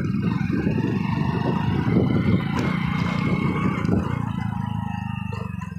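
Motorcycle engine running as the bike rides over a dirt track, easing off and getting quieter near the end.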